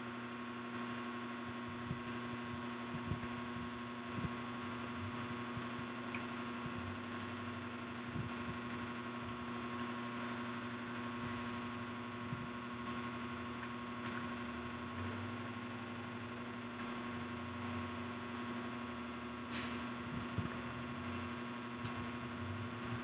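A steady electrical hum, with a few faint scattered clicks and crunches of people eating fried food by hand.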